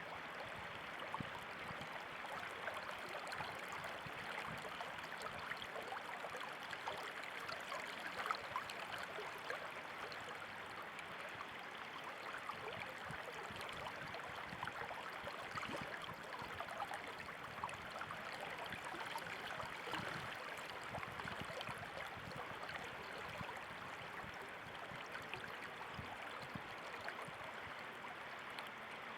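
Running water, a steady babbling flow with fine splashy detail and no pauses.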